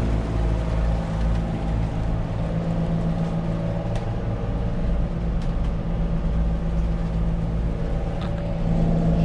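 A sailing catamaran's engines running steadily under way, an even low drone with a steady hum and no change in speed.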